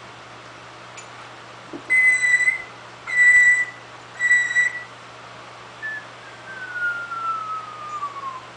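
A parrot whistling: three short, loud, level notes about a second apart, then one long whistle that falls steadily in pitch, the parrot's imitation of a falling bomb.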